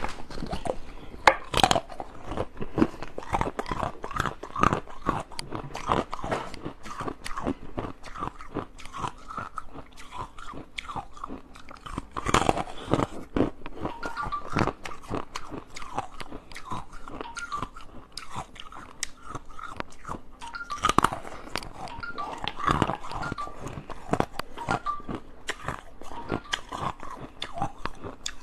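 A person biting and chewing ice: a steady run of close crunching and cracking, with a few harder, louder bites along the way.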